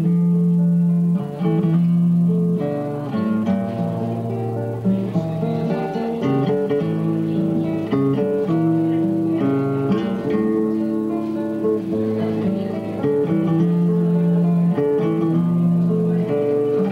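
Acoustic guitar played solo, a melodic instrumental passage of picked notes over lower bass notes, at an even level.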